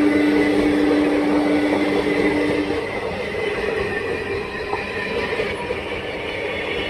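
Passenger coaches of an express train rolling past at speed, with a steady rumble and rattle of wheels on the rails. A steady whine sounds over it and stops about three seconds in.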